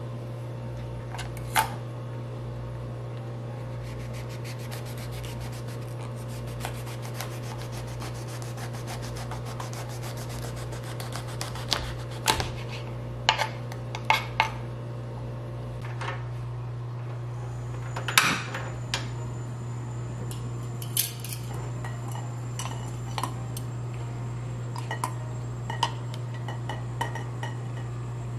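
Kitchen scissors snipping artichoke leaves and a knife cutting through the artichoke on a plastic cutting board: scattered sharp snips and cuts, with a cluster of knife strokes about halfway through and the loudest one a few seconds later. A steady low hum runs underneath.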